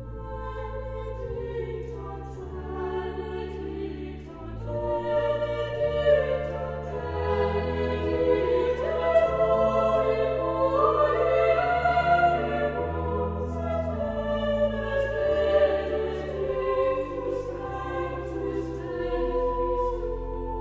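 Slow classical music with sustained chords, growing louder about five seconds in.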